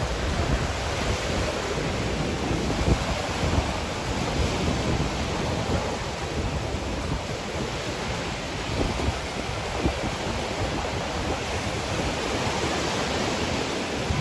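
Sea waves breaking and washing around a rocky outcrop, with wind buffeting the microphone: a steady rush of noise.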